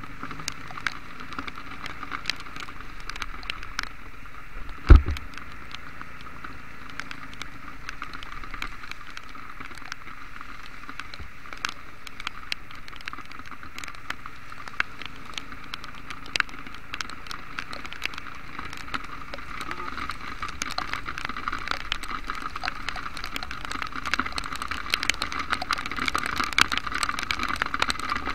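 Heavy rain: raindrops striking the camera in many sharp ticks over a steady hiss of rain and wet road. There is one loud knock about five seconds in, and the drops grow denser and louder near the end.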